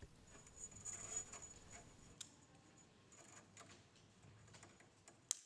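Faint handling of stainless steel wire rope ends, with sharp snips of a wire rope cutter cutting the rope: a small click a little past two seconds in and a louder one near the end.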